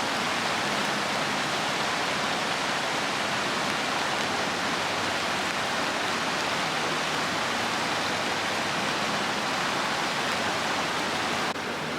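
Steady rushing of a waterfall, an even roar of falling water with no change in level, dipping slightly near the end.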